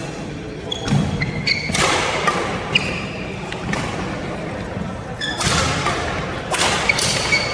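Badminton rally: a string of sharp racket hits on the shuttlecock, with shoes squeaking briefly on the court floor and footsteps between them, echoing in a large hall.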